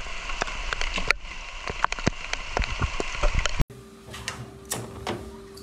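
Heavy rain falling, with many sharp ticks and clicks through it. About three and a half seconds in it cuts off suddenly to a quieter room with a steady low hum and a couple of knocks as a frying pan is set on a gas stove.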